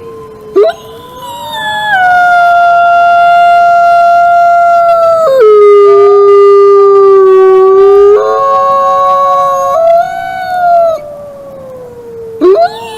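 Several wolves howling together in long, overlapping howls at different pitches. The howls hold steady notes, glide, and step down, and one voice drops to a lower held note about five seconds in.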